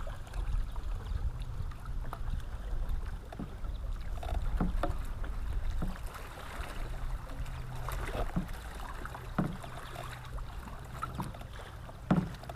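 Small fishing boat sitting on the water: water lapping against the hull with a low steady rumble, and scattered light knocks against the boat.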